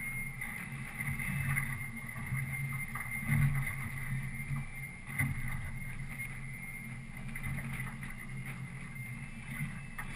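Fishing boat's motor running steadily with a low hum and a thin high whine, and a couple of short knocks about three and five seconds in.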